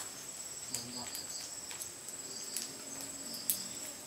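Insects trilling steadily at a high pitch, with a few sharp clicks.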